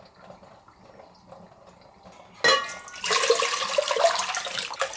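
Water starting suddenly about halfway through and running or pouring with a steady splashing hiss after a quiet first half.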